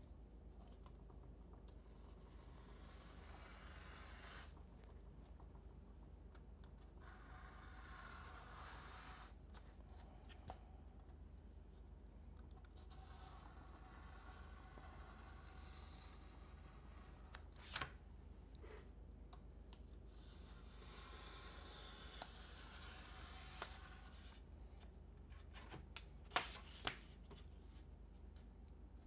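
Craft knife slicing through paper-faced foam board along a steel ruler: four long, scratchy cutting strokes a few seconds apart, with a few sharp clicks in the second half.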